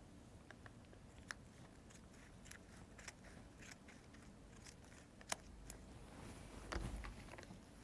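Faint scattered clicks and crinkling as a product package is opened by hand, with one sharper click about five seconds in and a soft thump near seven seconds.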